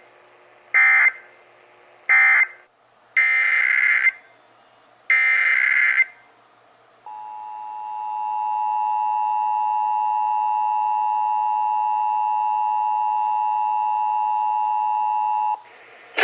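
Emergency Alert System SAME data bursts: two short buzzy digital bursts close out one message, then two longer bursts of about a second each start the next. These are followed by the steady EAS two-tone attention signal, 853 and 960 Hz sounded together, held for about eight and a half seconds.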